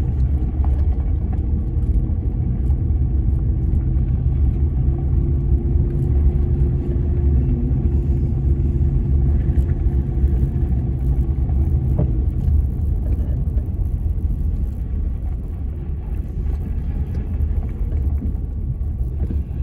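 Ford Ranger pickup driving, a steady low engine and road rumble heard from inside the cab, with a single click about twelve seconds in. The engine runs without the misfire it had: a failed ignition coil on cylinder 4, now replaced along with a tune-up, and the driver judges the truck fixed.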